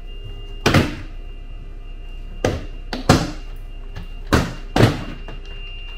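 Plastic cowl trim panel at the front of a Tesla Model 3's frunk being pulled up, snapping free of its retaining clips in five sharp snaps spread over a few seconds.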